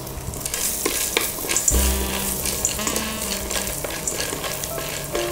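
Popcorn kernels sizzling in hot melted butter in a stainless steel pot, stirred with a wooden stick, with scattered light clicks and scrapes against the pot.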